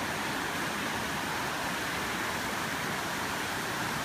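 Steady rushing of fast-moving floodwater in a swollen creek.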